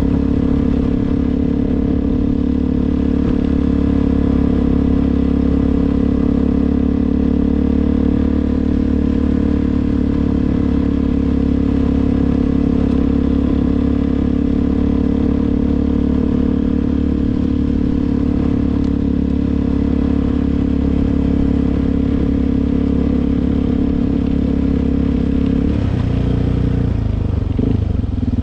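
Suzuki DR-Z400's single-cylinder four-stroke engine running at a steady engine speed, its pitch shifting near the end.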